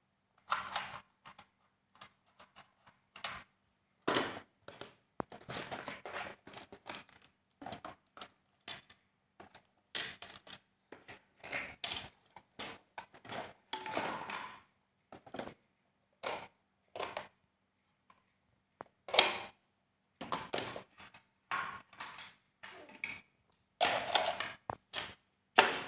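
Plastic toy pieces and a cardboard box being handled: irregular knocks and clatter of hard plastic parts, with cardboard scraping and the rustle of plastic wrapping, one or two short bursts a second.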